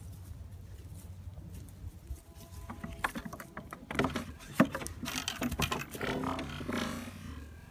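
Hooves clattering on the wooden slats of a porch swing as a myotonic (fainting) goat jumps on and the swing moves. A sharp knock comes about four and a half seconds in, as the startled goat stiffens and falls off, followed by more clatter and rustling.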